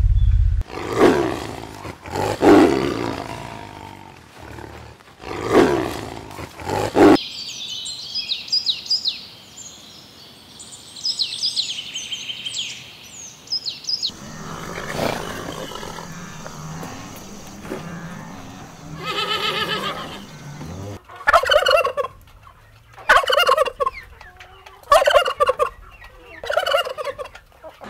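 Male domestic turkey gobbling: a string of loud rattling gobbles in the last third. Earlier come a few loud calls and a spell of high-pitched bird chirps.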